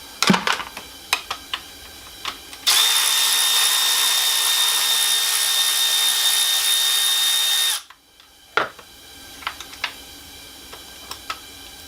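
A handheld power tool, such as a drill, runs at one steady speed for about five seconds and then stops abruptly. Light clicks and knocks of parts being handled come before and after it.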